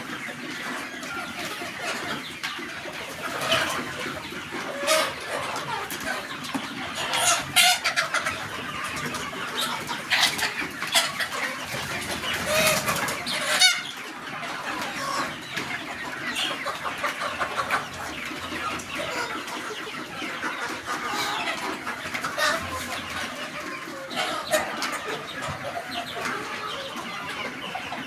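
A flock of desi chickens clucking and calling together, with many short overlapping calls and sharp squawks throughout.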